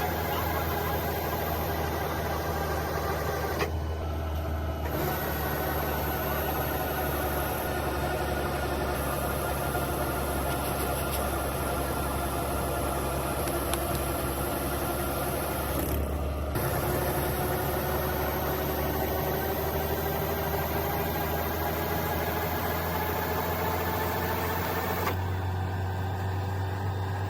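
Rice combine harvester's engine and machinery running steadily, a constant drone with tones that drift slowly in pitch; the sound changes abruptly three times.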